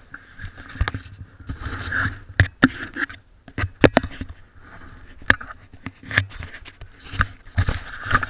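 Handling noise of an action camera held in the hand: irregular knocks, clicks and rubbing on its case as it is moved around.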